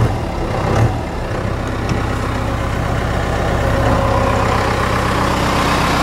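A 4BT Cummins four-cylinder turbo diesel idling steadily at a low idle, its idle speed freshly turned down, heard from inside the truck's cab.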